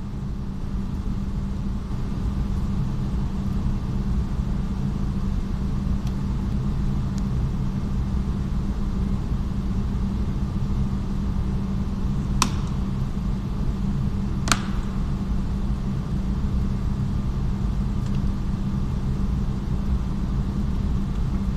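Steady low hum, with two sharp clicks about two seconds apart past the middle: the plastic clips of the Renault Mégane 3 coupé's inner door-mirror trim cover snapping as it is pried off with a flat screwdriver.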